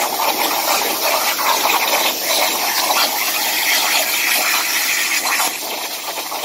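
CNC plasma cutter torch cutting through 3 mm steel plate, a loud steady rushing hiss of the arc and its air jet. The level drops slightly about five and a half seconds in as the cut goes on.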